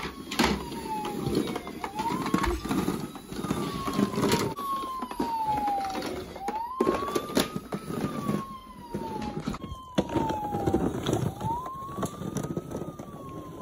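Toy ambulance siren wailing. Its pitch climbs quickly and then slides slowly down, over and over, with a rough lower noise underneath.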